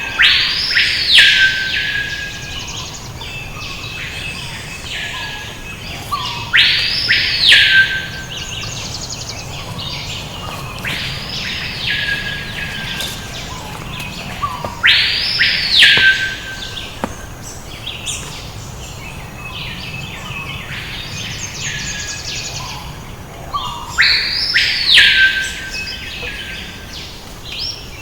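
A rainforest bird giving a loud call that sweeps up and then falls, repeated five times a few seconds apart, each about a second and a half long. Other birds chirp more faintly between the calls.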